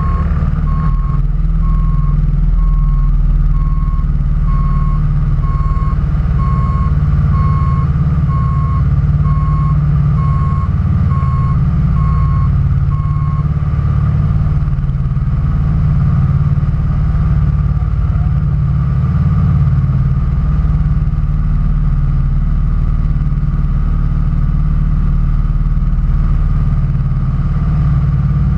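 A backup alarm beeping about twice a second over the steady low rumble of a running engine. The beeping stops about halfway through, and the engine runs on unchanged.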